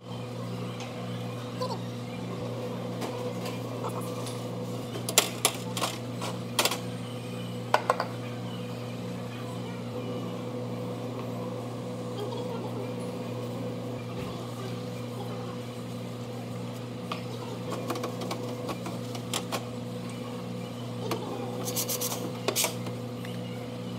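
Steady low hum of café equipment with a faint regular pulse, under scattered clinks and knocks from an espresso machine and cups being handled and wiped clean: a cluster about five to eight seconds in and another near the end.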